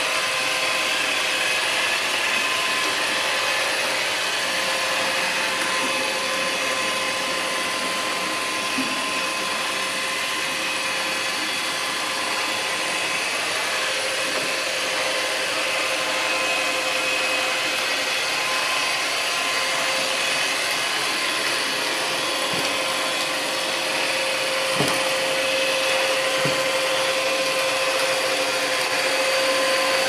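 Rowenta Explorer Serie 20 robot vacuum cleaner running: a steady motor whir with a fixed whine. A few light knocks come about three-quarters of the way through.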